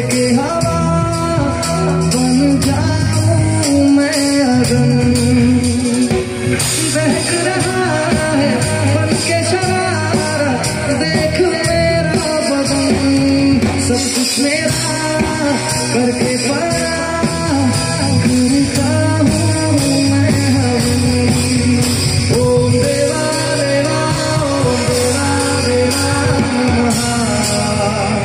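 A man singing a Bollywood-style song live into a handheld microphone over loud instrumental accompaniment.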